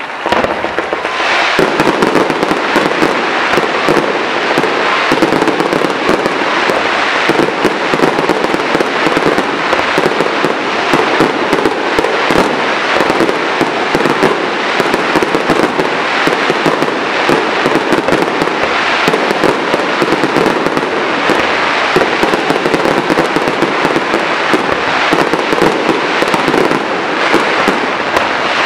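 Aerial fireworks display: a continuous, dense barrage of rapid pops and crackles from many bursting shells and crackling stars, growing much louder about a second in and staying loud.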